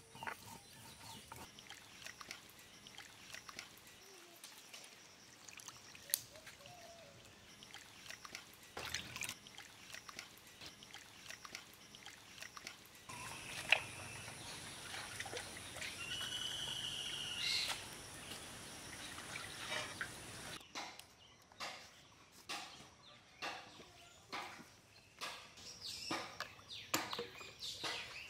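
Water sloshing and trickling as chicken pieces are washed by hand in a metal bowl, with birds calling around the middle. A run of sharp knocks follows near the end.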